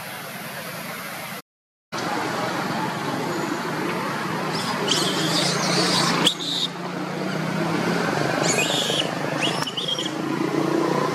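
Young long-tailed macaques squealing in two short high-pitched bouts during a chase, over a steady background hiss and low hum.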